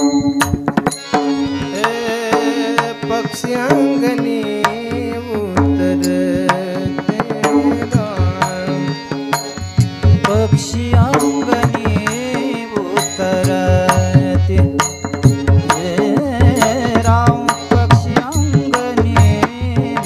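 Marathi devotional kirtan music: harmonium holding the melody over pakhawaj drum strokes, with a sung melodic line.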